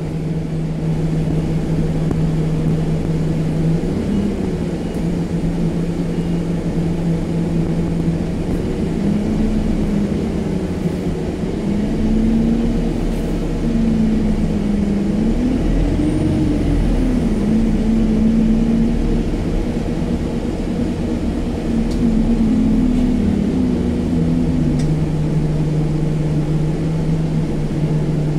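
Cabin sound of an Alexander Dennis Enviro 200 MMC single-deck bus on the move: a steady diesel engine and drivetrain drone. Its pitch steps up and wavers through the middle, then settles back lower near the end.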